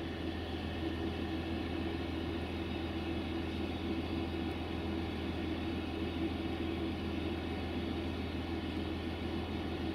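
Diesel train engine idling close by: a steady low rumble and hum that holds constant throughout.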